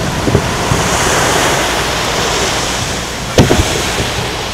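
Aerial firework shell bursting with one sharp bang about three and a half seconds in, over a steady hiss of noise.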